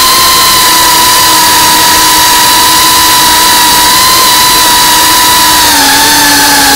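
FPV racing quadcopter's electric motors and propellers whining at high throttle, with a loud rush of wind over the onboard microphone. The pitch holds steady, then drops slightly about six seconds in as the throttle eases.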